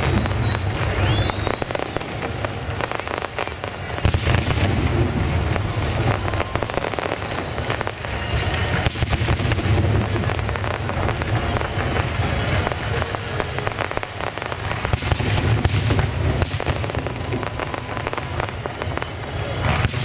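Fireworks display: a dense, continuous barrage of aerial shell bangs and crackling, swelling into heavier booming every few seconds. A short high whistle sounds about a second in.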